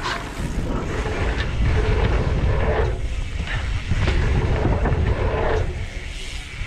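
Wind buffeting an action camera's microphone while a mountain bike is ridden through a dirt jump line, with a heavy, churning rumble of wind and tyres on the dirt.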